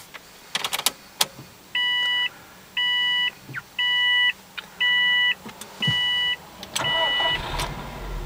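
A few clicks, then the car's warning chime beeping six times, about once a second, with the ignition switched on. Near the end the starter cranks and the 2004 Subaru Impreza WRX's turbocharged flat-four catches and settles into a low idle.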